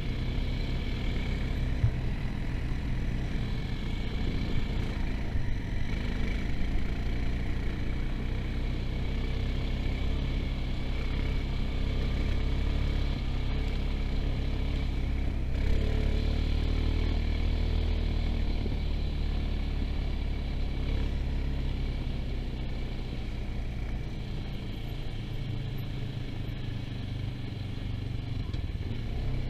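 Honda Rancher ATV's single-cylinder engine running steadily under load as it climbs a loose rocky trail, heard from the rider's seat.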